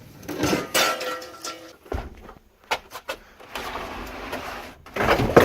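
Wooden pallets being handled and pulled from a stack: scraping and knocks of wood on wood, with a sharp knock about two seconds in and a louder clatter near the end.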